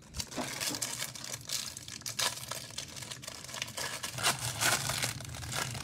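Plastic wrapper of a football trading-card pack being torn open and crinkled by hand, a dense run of crackles and rustles.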